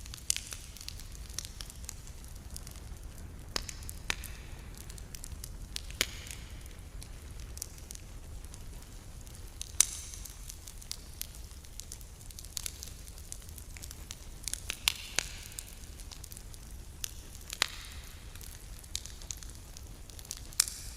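Wood campfire crackling: irregular sharp pops and snaps, with short bursts of hissing, over a steady low rumble. The loudest snaps come about ten seconds in, with a cluster of them around fifteen seconds.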